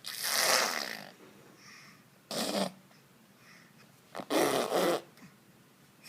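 Three harsh, raspy growl-like vocal bursts: the first about a second long, the second short, the third nearly a second, with quiet between them.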